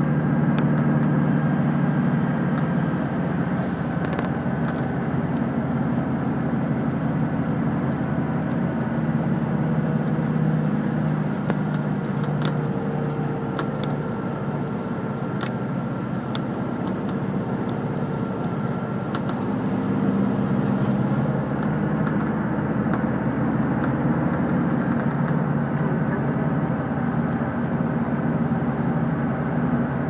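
Diesel route bus running, heard from inside the cabin: steady engine and road noise whose engine note rises and falls, with light rattles and clicks from the bus's fittings.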